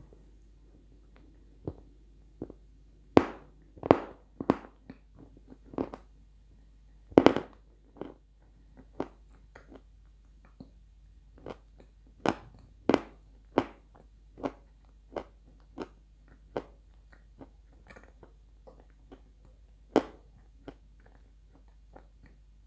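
A person chewing and crunching dry edible clay close to the microphone: a string of irregular sharp crunches, a few of them much louder than the rest.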